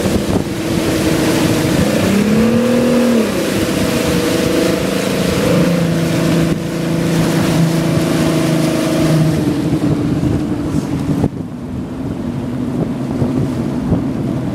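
Mercury 150 outboard motor running at speed over rushing water and wind on the microphone, its pitch briefly rising and falling about two seconds in. Toward the end the engine note fades and the rush of spray drops away.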